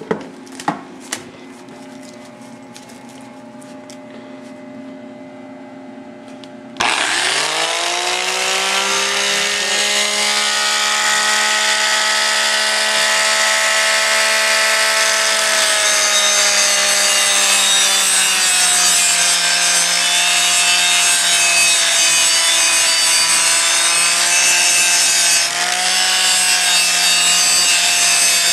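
The cooling fan of a small Miller AC buzz-box welder hums steadily, with three sharp clicks near the start. About seven seconds in, an angle grinder starts abruptly and spins up with a rising whine, then runs steadily as it grinds rust off the steel trailer frame down to bare metal, readying a spot for the welder's ground clamp.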